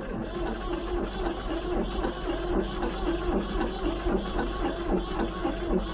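Ford 3000 tractor's three-cylinder diesel engine being cranked by its starter, turning over in a steady rhythm. It is wanting to go but not catching.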